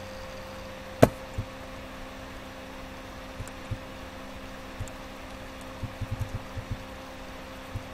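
Computer mouse being clicked and scrolled over a steady electrical hum: one sharp click about a second in, then scattered faint taps, bunched around six seconds in.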